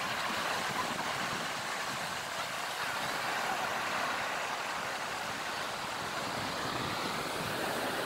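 Steady outdoor wash of wind and shallow seawater at the shoreline, with no distinct events; a faint rising whine comes in near the end.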